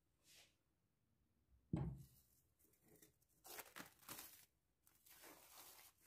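A glass bowl set down with a thump, followed by plastic cling film being peeled off the bowl, crinkling in two spells.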